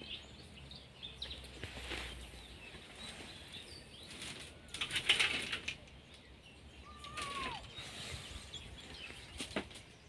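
Rustling of dry leaves and brush in uneven bursts, loudest about five seconds in. Faint bird chirps are heard, and there is one short whistled note sliding downward around seven seconds in.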